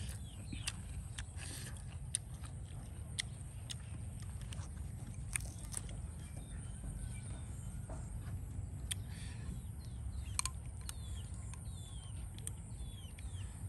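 Outdoor ambience: a steady high hiss and low rumble, with scattered sharp clicks and taps and a few short bird chirps near the end.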